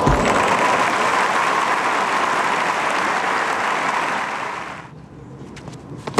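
Tennis crowd applauding at the end of a point, a steady wash of clapping that dies away about five seconds in.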